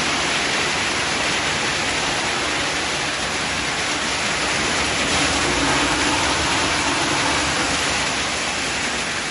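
Label remover machine on a PET bottle washing line running, a steady rushing noise of spraying and falling water together with the turning studded drum.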